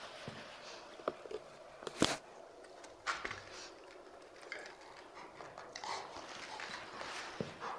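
Golden retriever puppy play-biting an adult golden retriever: soft scuffling and mouthing noises with scattered clicks, and one sharp, louder click about two seconds in.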